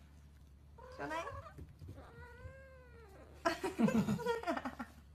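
Kitten meowing: a short cry about a second in, then one drawn-out meow that rises and falls in pitch. Near the end comes a louder, rougher vocal burst.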